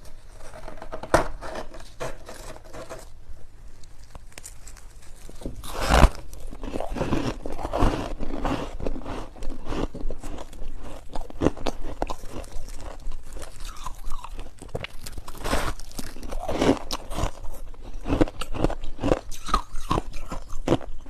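Close-up chewing of freezer frost: a dense, irregular run of squeaky crunches, with a sharp louder crunch about six seconds in.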